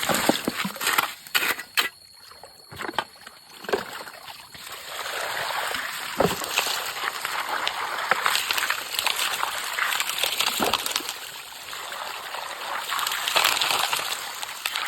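Water splashing in uneven bursts, then a steady rush of water washing over a carpet gold sluice from about four and a half seconds in.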